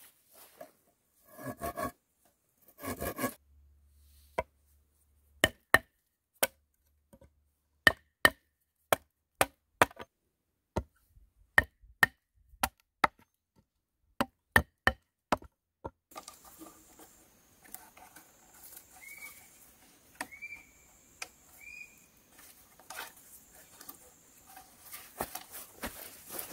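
Hatchet chopping a notch into a wooden log: about twenty sharp strikes, irregular and roughly two a second, that stop about two-thirds of the way through. Afterwards a steady high hiss, three short rising chirps and a few light knocks.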